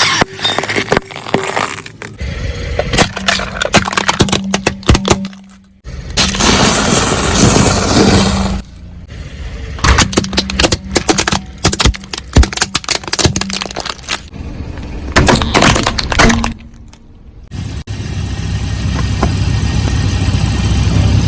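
Objects being crushed under a car's tyres: dense runs of sharp cracking, snapping and crunching, broken into several short sections by abrupt cuts, with a low steady hum underneath in places.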